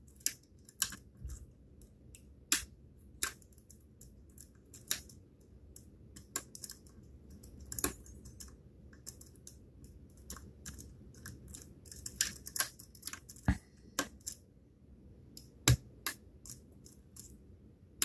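A lock pick clicking and scraping against the pin stacks of the OverReach pin-tumbler challenge lock (spool pins), irregular small metallic clicks with two louder ones in the second half.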